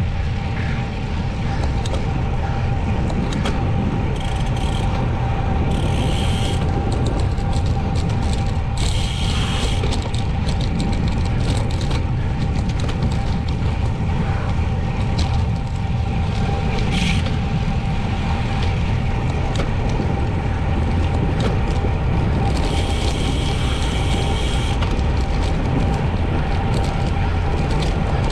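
Wind buffeting the microphone and road noise from a bicycle being ridden at speed, a steady rush with a faint steady hum and occasional clicks.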